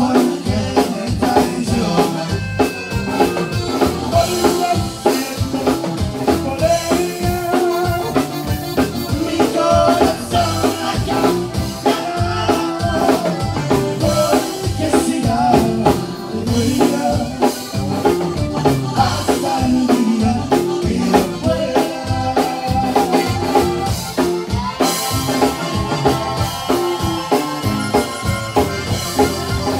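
Tejano conjunto band playing live: a button accordion melody with bajo sexto and bass over a steady drum-kit beat.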